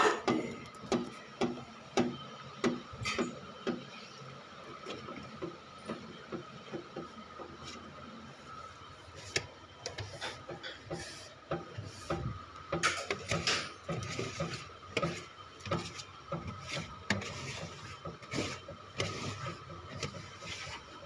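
A cloth scrubbing and wiping the fridge's surfaces: repeated short rubbing strokes with light knocks, coming thicker in the second half.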